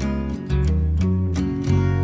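Background music: strummed acoustic guitar with a steady bass line.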